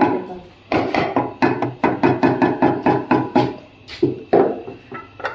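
Music with a quick, even run of short pitched percussive notes.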